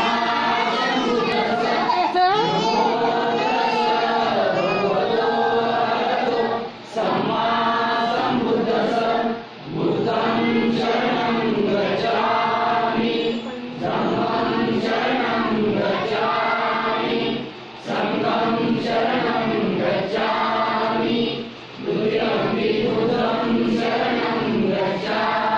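A congregation of men, women and children singing a devotional prayer together in unison, in long held phrases with a short breath-break every few seconds.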